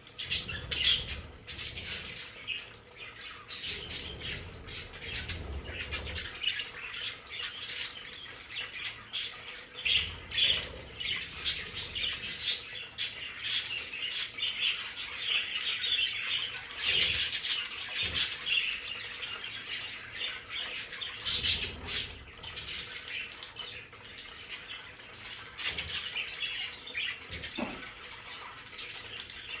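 A flock of budgerigars chattering continuously, a busy mix of quick chirps, warbles and short squawks.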